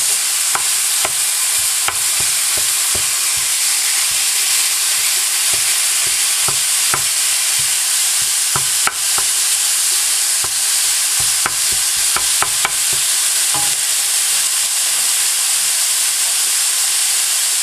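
Ground beef sizzling in a hot skillet, with a wooden spatula tapping and scraping against the pan as the meat is chopped up. The tapping stops about three-quarters of the way through while the steady sizzle goes on.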